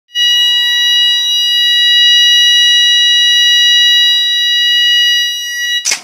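Electronic fire alarm sounder giving one loud, steady, high-pitched continuous tone that starts at once and cuts off abruptly near the end.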